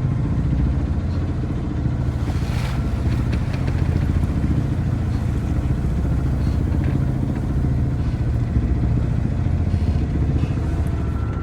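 A Sabre 27 yacht's inboard engine running steadily under way, a low pulsing drone, with strapping still wrapped around the propeller so it gives little drive and progress is very slow.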